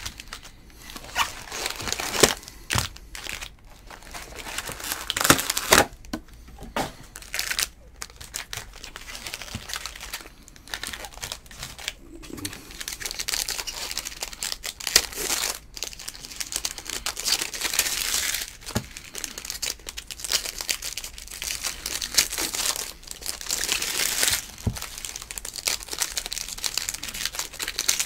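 Foil wrappers of Topps baseball jumbo card packs crinkling in the hands and tearing as a pack is ripped open, in irregular crackles that come and go.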